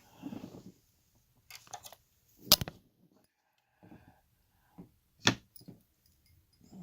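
Small metal tools and lock parts clicking and clacking as a padlock is taken apart by hand, with two sharper knocks about two and a half and five seconds in.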